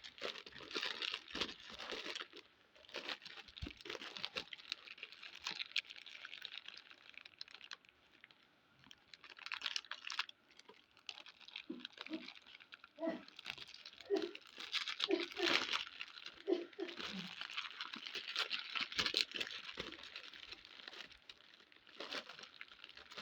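Plastic biscuit wrappers crinkling and crackling as they are handled and torn open, in uneven bursts.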